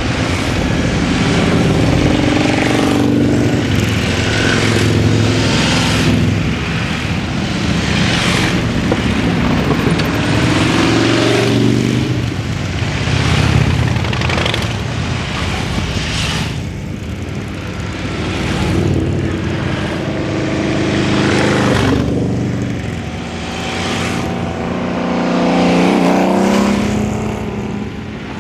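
A procession of large cruiser and touring motorcycles riding past one after another, their engines swelling and fading as each bike goes by, with engine pitch gliding up and down as the riders work the throttle.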